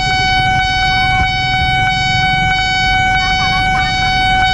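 Nippon Signal–type electronic alarm of a railway level crossing sounding one loud, steady tone: the crossing is active, warning of an approaching train. Road traffic engines rumble underneath.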